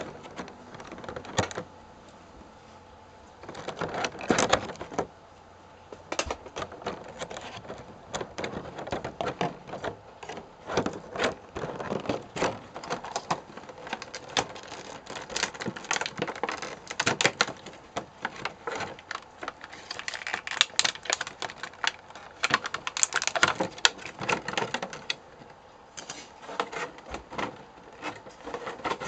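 Clear plastic blister packaging crackling and clicking as it is handled, in irregular bursts with brief pauses a couple of seconds in and again about five seconds in.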